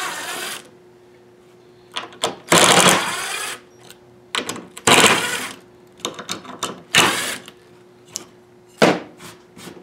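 Cordless drill with a screwdriver bit running in several short bursts, the longest about a second, as screws are backed out of a wooden cleat to take a fence-picket panel apart. Small clicks and knocks of the bit and wood come between the bursts.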